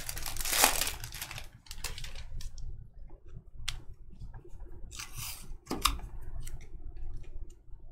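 Foil wrapper of a Bowman Draft baseball card pack crinkling as it is opened, then the stiff cards being flicked through one by one in a run of light clicks and snaps, with a brief rustle a little after five seconds.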